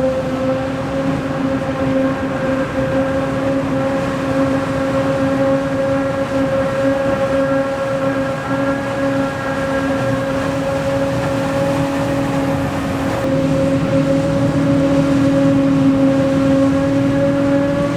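Steady mechanical drone held at one constant pitch, with a strong hum and overtones above it and no rise or fall in speed.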